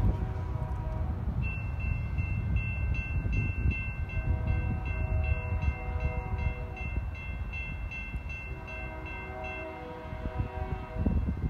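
Approaching locomotive's air horn sounding several long blasts for a grade crossing, over a low rumble.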